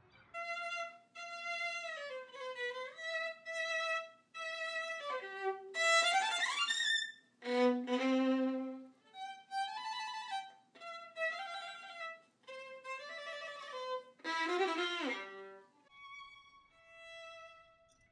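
Solo violin playing an expressive passage of held notes with slides between them, a fast upward run about six seconds in, and a fast downward run later on.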